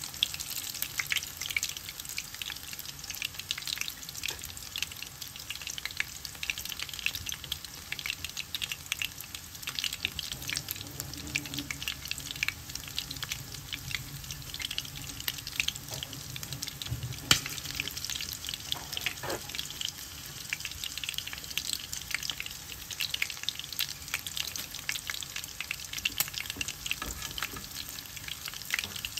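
Battered shrimp deep-frying in hot oil: a steady sizzle dense with small crackling pops, with one louder pop about seventeen seconds in.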